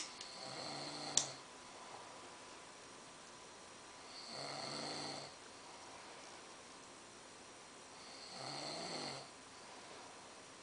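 Snoring: three drawn-out snores about four seconds apart, each lasting about a second. Two sharp clicks come in the first second or so, the second one the loudest sound here.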